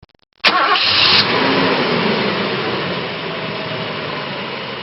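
A car engine comes in suddenly about half a second in, loud at first, then runs on with a dense rushing sound that eases slightly.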